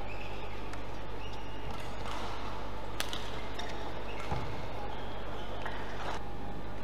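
Badminton rally: sharp racket hits on the shuttlecock, the loudest about three seconds in, with short high squeaks of shoes on the court mat over a steady hall hum.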